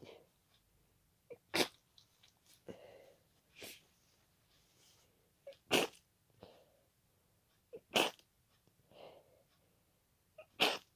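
A person sneezing again and again in a fit: four loud, sharp, wet sneezes about two to three seconds apart, with quieter breathy sounds between them. The sneezes come from a congested nose irritated by pollen.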